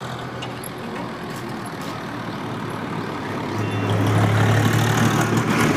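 Steady low mechanical hum with a rushing noise over it, growing louder about three and a half seconds in.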